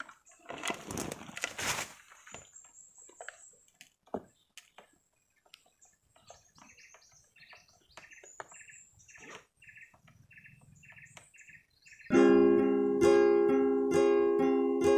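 A blade cutting into a sugar palm's flower stalk: a couple of seconds of rasping strokes, then faint bird chirps. About twelve seconds in, acoustic guitar music starts and is the loudest sound.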